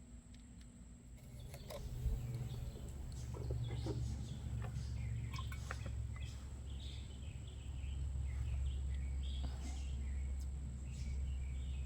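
Outdoor ambience: a steady low rumble that grows louder about two seconds in, with birds chirping and a few scattered clicks.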